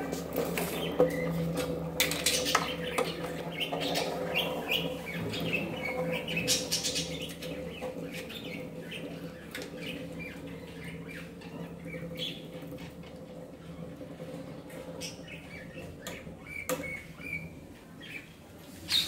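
Two Beyblade spinning tops spinning on a wooden chair seat: a steady whirring hum that slowly fades, with short high chirps and scrapes over it.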